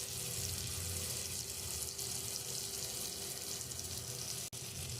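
Food sizzling steadily in a hot pan, with a brief break near the end.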